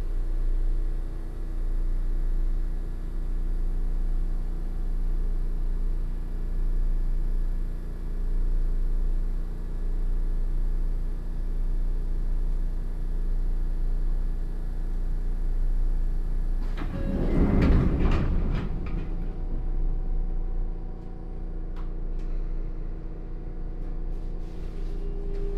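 Interior running noise of a Sotetsu 8000 series electric train car at steady speed: a rumble with steady hum tones, a louder rush of noise for a second or two about 17 seconds in, and a new steady tone coming in near the end.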